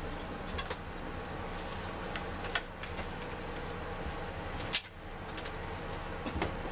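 Steady mechanical hum inside a city bus cab, with a few faint clicks and knocks.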